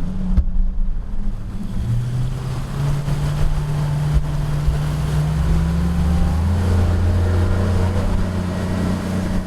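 Motorboat engine running under way, its pitch stepping up about two seconds in and again about six and a half seconds in as it speeds up, over a steady rushing noise.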